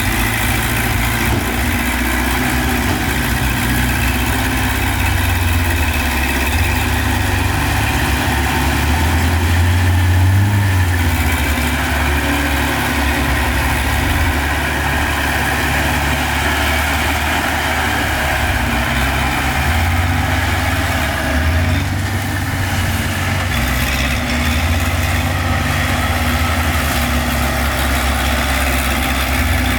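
Heavy diesel engine of earthmoving equipment running low and steady, swelling slightly about ten seconds in.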